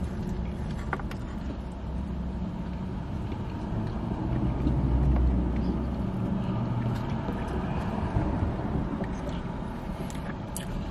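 Low steady rumble of a car heard inside its cabin, swelling for a couple of seconds around the middle, with a few faint clicks.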